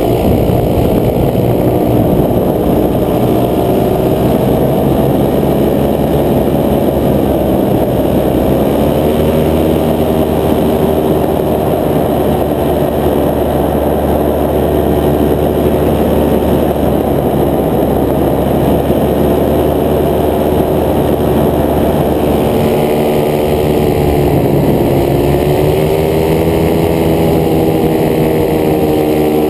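Paramotor engine and propeller running steadily in flight. Its pitch sags and rises again a few times.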